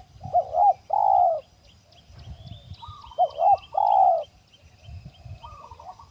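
Spotted dove cooing: two phrases about three seconds apart, each two short notes followed by a longer drawn-out coo, with a fainter phrase near the end. Small birds chirp thinly in the background.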